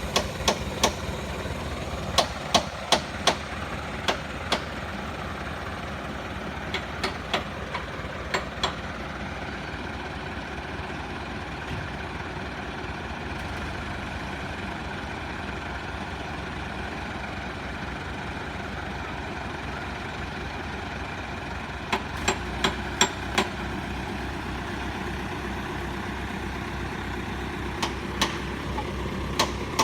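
Heavy truck engine running steadily, with several short runs of sharp knocks or clatters on top.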